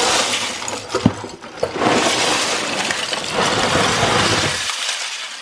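About ten pounds of loose LEGO bricks and parts poured from a cardboard box onto carpet: a loud, continuous clattering rattle of plastic pieces that starts suddenly and dies away about four and a half seconds in.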